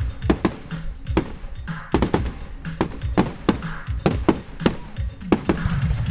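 Fireworks going off in a rapid, irregular series of sharp bangs, two or three a second, over recorded music.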